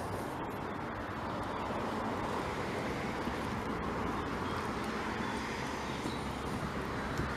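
Steady road traffic noise: an even hiss of passing cars' tyres and engines, with no single vehicle standing out.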